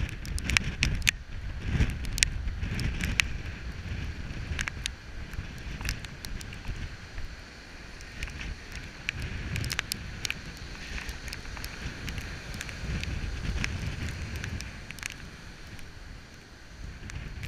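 Heavy storm surf breaking on a rocky shore: a low rumble of breakers that swells and eases every few seconds, with wind on the microphone and many scattered sharp ticks.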